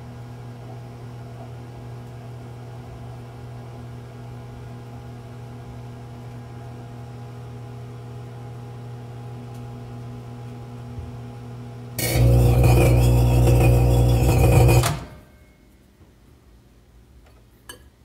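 1100-watt microwave oven running with a steady hum. About twelve seconds in, a loud, harsh buzzing burst lasts about three seconds, and then the running stops. A few sharp clicks near the end come from the door and the bowl being handled.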